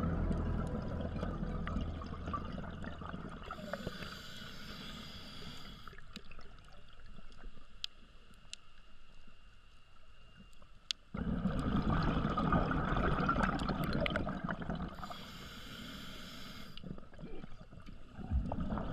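Scuba diver breathing underwater through a regulator: rumbling, gurgling streams of exhaled bubbles and two hissing inhales, with a few faint clicks.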